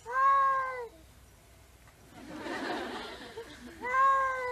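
A black cat meows twice, about four seconds apart. Each call is drawn out and holds its pitch before dropping at the end, sounding like the Japanese word 'san'. A brief, softer noisy stretch falls between the two meows.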